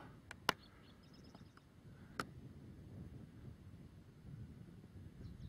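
Quiet outdoor background with a faint low rumble, broken by a few sharp clicks: two near the start and one about two seconds in.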